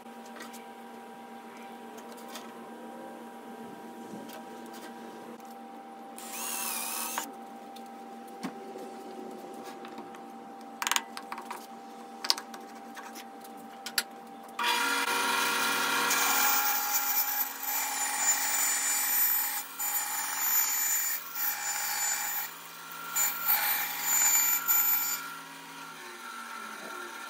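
Bandsaw cutting a stack of thin boards into a 6-inch circle on a pivot jig. It comes in suddenly about halfway through and is loud and uneven as the stack is turned through the blade. Before that there is a steady low machine hum with a few knocks and a brief hiss.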